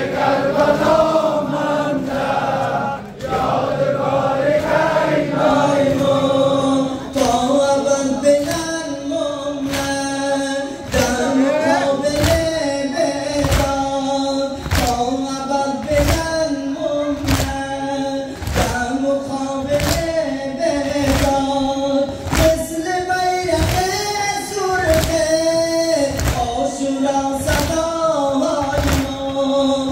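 A congregation of men chants a Shia mourning lament (noha) together. From about seven seconds in, rhythmic chest-beating (matam) slaps keep time at roughly one a second.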